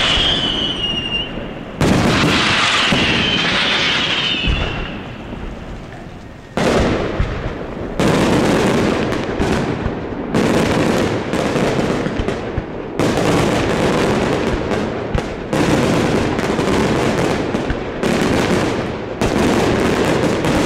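Daytime fireworks bursting overhead: whistling shells in the first few seconds, then from about a third of the way in a dense barrage of rapid bangs and crackling that surges again every two to three seconds.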